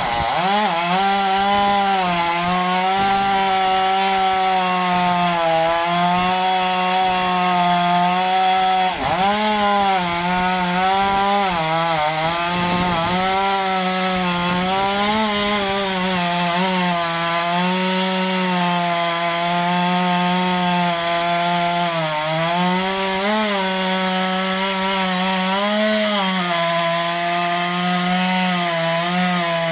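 Stihl MS 661 C two-stroke chainsaw running at high revs while cutting through firewood logs, its steady engine note dipping briefly under load a few times.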